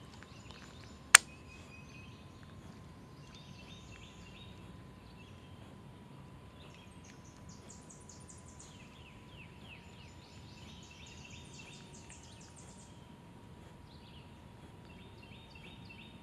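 Small birds singing in the woods, series of quick, high repeated chirps, over a faint steady tone. A single sharp click about a second in, most likely from the fishing rod and reel in hand, is the loudest sound.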